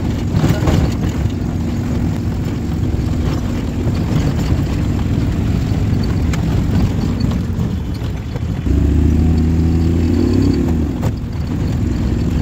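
Small vehicle's engine running while driving, heard from inside the cab, with some rattling. About nine seconds in the engine note grows louder and steadier for a couple of seconds, then drops back after a knock.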